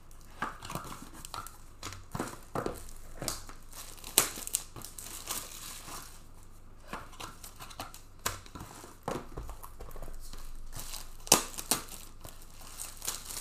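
Hands handling trading cards and their plastic packaging: irregular sharp clicks and snaps, the loudest about four seconds in and a little past eleven seconds.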